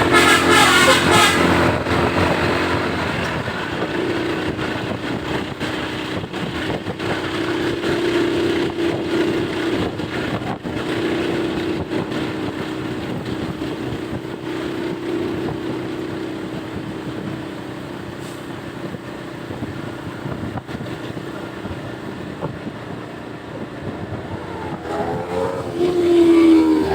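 Telolet basuri multi-tone bus horn playing a melody, which breaks off about two seconds in. Large buses then drive past with steady engine and road noise, and the horn melody starts again near the end.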